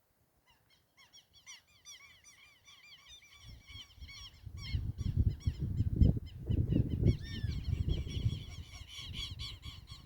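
A flock of birds calling: many short, arched calls overlapping several times a second, growing louder. From about three and a half seconds in, a low rumble runs underneath, loudest around the middle.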